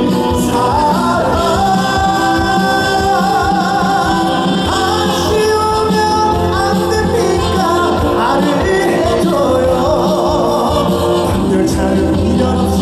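Trot music playing through the stage sound system: a held, gliding melodic lead line over a full accompaniment, with no words sung.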